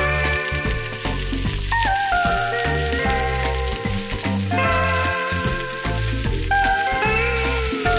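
Sliced onions sizzling in hot oil in a frying pan, a steady hiss as they are stirred with a spatula, under louder background music with a bass line.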